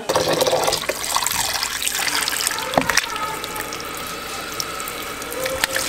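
Kitchen tap running, its stream splashing into a plastic bowl of water in a stainless steel sink, where a vacuum-packed block of ground meat is being thawed. A couple of sharp clicks come near the middle.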